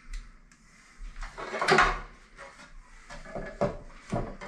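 Plastic washer outlet box clattering as it is handled and fitted into an open stud wall: a rattling clatter about a second and a half in, then a few sharp knocks.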